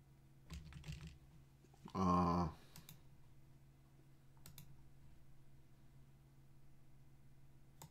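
Computer keyboard and mouse clicks: a few scattered taps and clicks. About two seconds in there is a brief, louder pitched tone.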